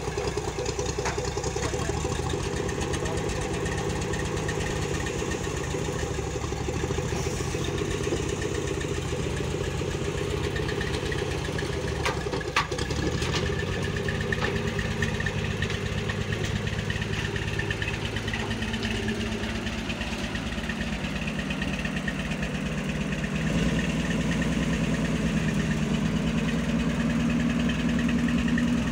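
A 1958 Chevrolet Biscayne's engine idling steadily as the car creeps down a trailer ramp, with a single sharp knock about halfway through. The engine sound grows louder for the last few seconds.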